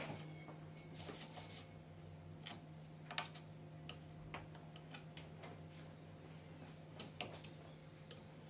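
Scattered small clicks and taps of a steel hand tool against the glass and timber rebate of a window sash being glazed, the sharpest about three seconds in and another pair near the end, over a steady low hum.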